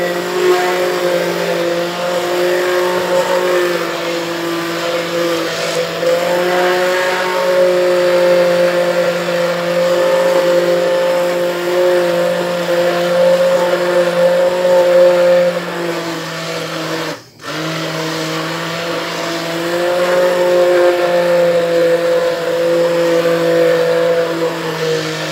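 Hand blender motor running steadily in a pot of cooked strawberry jam, puréeing part of the fruit to thicken the sauce. It cuts out for a moment about two-thirds of the way through, then starts again.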